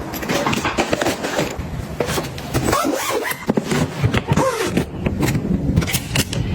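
Packaging and plastic storage containers being handled during restocking: a busy run of light clicks, knocks and crinkling, with a few short squeaky sounds in the middle.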